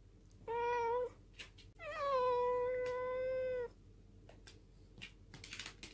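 Black cat meowing to ask for food: one short meow, then a long drawn-out meow held at a steady pitch.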